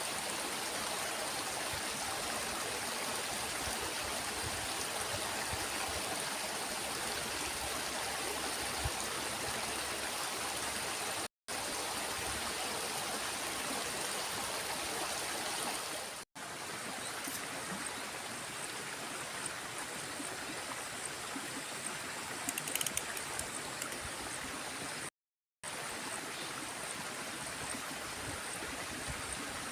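Small stream flowing, a steady rush of running water that cuts out briefly three times.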